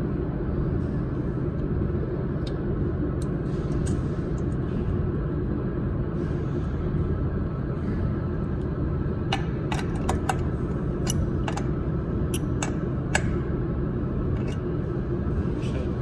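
Steady low background rumble, with a scatter of small sharp clicks between about nine and thirteen seconds in as the fiber optic cable's metal connector is handled and fitted into the laser welding head's fiber port.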